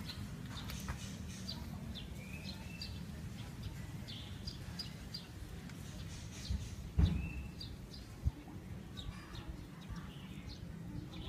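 Small birds chirping: short high chirps scattered throughout over a low steady rumble, with a couple of dull thumps about seven and eight seconds in.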